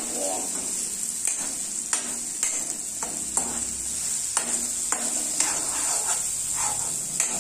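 Chopped onion, tomato and green chilli sizzling in oil in a kadai, with a steady hiss, while a metal ladle stirs them, scraping and clicking against the pan again and again.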